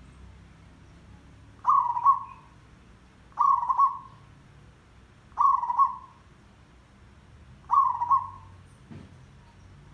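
Zebra dove cooing: four short, rolling calls of several quick notes each, about two seconds apart.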